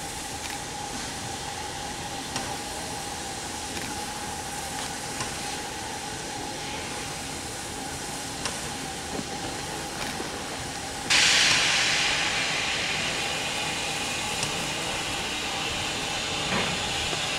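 Steam locomotive hissing steadily, with a faint steady tone and a few light clicks; about eleven seconds in, a sudden loud rush of escaping steam starts and slowly eases off.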